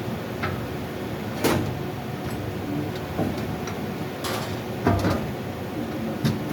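A few scattered knocks and clanks over a steady background noise, typical of metal parts and tools being handled while an air handling unit blower is installed.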